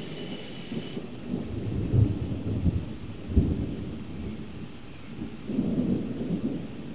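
Thunder rumbling low in a summer storm, swelling between two and three and a half seconds in and again near the end.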